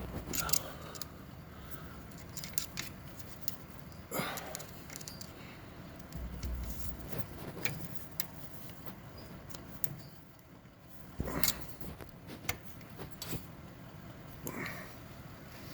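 Irregular metallic clicks and scrapes of a screwdriver and hand working at the transmission's push-button shifter cable connection, with sharper knocks about 4 and 11 seconds in.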